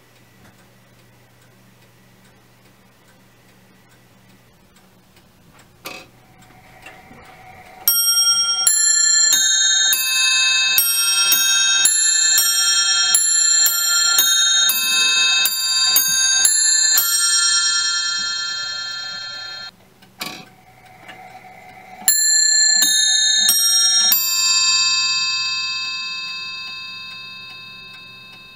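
Automaton clock playing the quarters: faint ticking, a mechanism click, then the wizard figure's hammer striking a nest of four bells in a quick run of bright, ringing notes that stops abruptly. After another click, a second short run of bell strikes rings away slowly.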